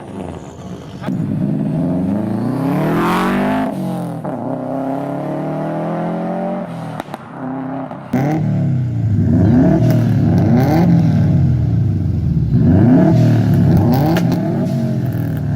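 Subaru boxer engines revving: one rev climbs and falls in the first few seconds, then, after a cut about eight seconds in, a second engine is blipped up and down repeatedly, about once a second.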